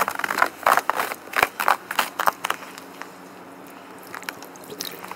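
Footsteps crunching on packed snow, irregular and quick over the first couple of seconds, then only a few scattered crunches.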